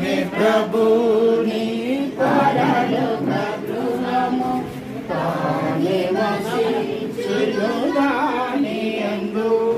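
A group of people singing a hymn together, voices holding and changing notes in a steady song line.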